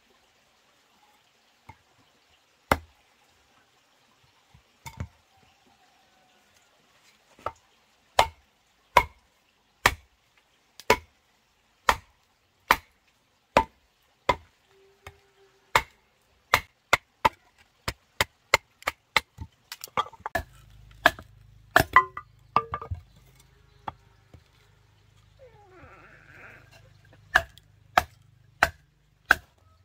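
Repeated chopping strikes, sparse at first, then about one a second and briefly quicker in the middle. A low hum runs under the second half.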